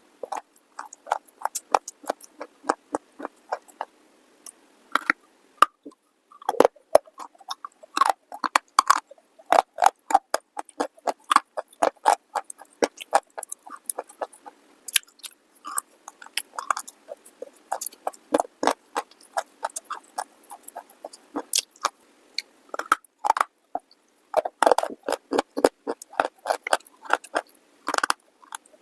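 Close-miked biting and chewing of dry clay pieces: dense runs of sharp, brittle crunches with short pauses between mouthfuls.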